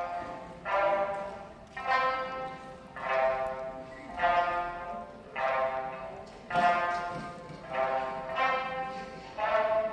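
Sanshin ensemble playing an instrumental passage: a steady run of struck notes, about one a second, each starting sharply and fading away.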